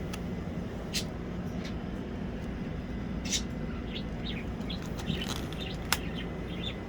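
Faint, short bird chirps over a steady low hum, with a few sharp clicks, about three in all.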